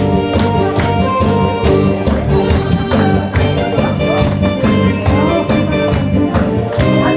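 Korean trot instrumental backing track played loud over a sound system, with a steady beat and no vocal yet, while the audience claps along.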